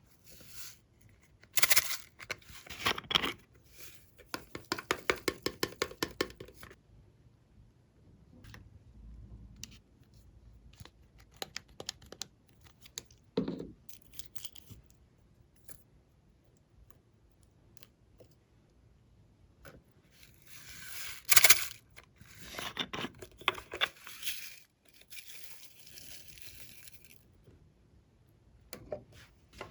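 Glossy slime being stretched, pressed and mixed by hand: sticky tearing and a fast run of crackling clicks, in a few bursts with quiet gaps between.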